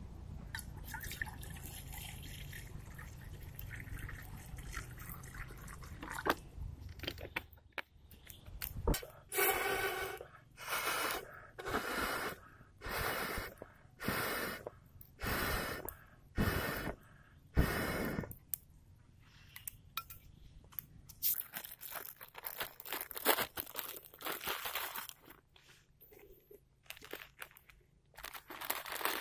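Water poured from a plastic bottle into a metal cooking pot over a campfire, then eight short puffs of breath blown through a pipe onto the glowing embers, about one a second, to fan the fire. Near the end, light rustling and crinkling as an instant noodle packet is handled.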